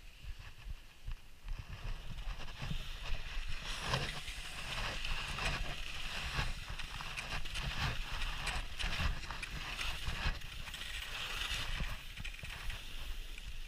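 Alpine skis sliding and scraping over packed, chopped-up snow: a continuous hiss with many short grating scrapes, which grows louder about two seconds in as the skier picks up speed, over a low rumble.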